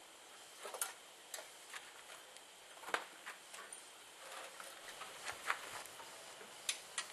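Irregular light clicks and taps, about a dozen, spaced unevenly, with the loudest about three seconds in. They come from hands handling the parts and cables of a small engine.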